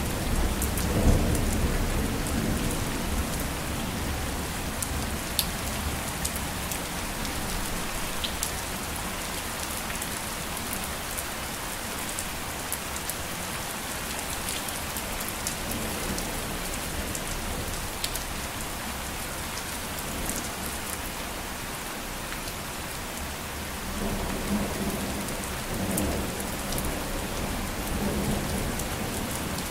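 Steady rain with scattered sharp drop ticks. A low rumble of thunder fades over the first couple of seconds, and softer low rumbles come again near the end.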